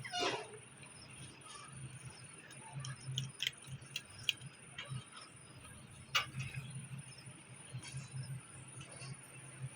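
Pet parrot making quiet sounds: a brief falling squeak at the very start, then scattered soft clicks and ticks. A low steady hum runs underneath.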